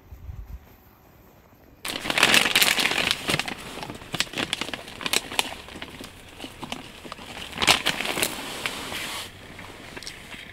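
Crinkling and crackling of a plastic bag being handled, starting suddenly about two seconds in and going on for about seven seconds, full of sharp clicks.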